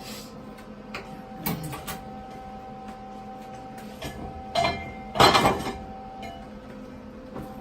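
Metal clanks and knocks from steel frame pieces and clamps being handled: a ringing clink about a second and a half in, then a louder pair of clanks about five seconds in, over a steady background hum.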